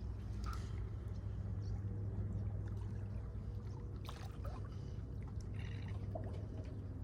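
Water lapping and trickling at the shoreline over a steady low rumble, with a few light clicks about four seconds in.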